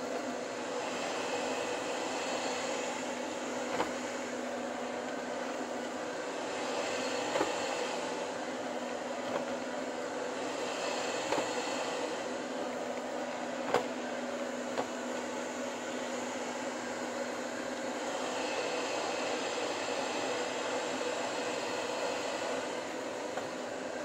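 Robot vacuum cleaner running with a steady motor hum and hiss that swells and fades, its bumper knocking sharply about five times against the legs of the stool it is trapped under as it tries to find a way out.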